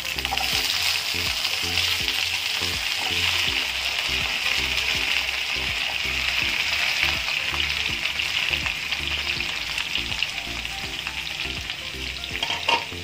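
Hot oil in a kadai sizzling steadily as chunks of raw jackfruit, drumstick pieces and shallots are dropped in by hand and start to fry. A few sharp ticks come near the end.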